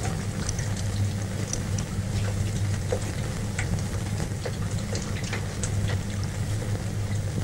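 Steady low hum with hiss and scattered crackles from an old optical film soundtrack.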